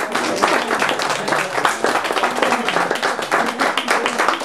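A small audience applauding, many hands clapping steadily, with voices talking over it.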